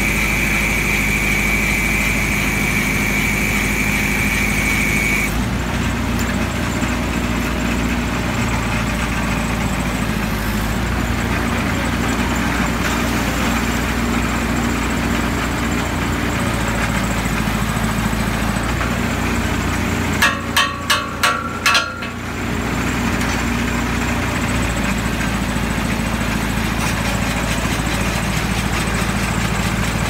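Engine of a truck-mounted pump-pulling rig running steadily while a pump is pulled from an irrigation well. A high whine stops about five seconds in, and about two-thirds of the way through there are four quick sharp knocks.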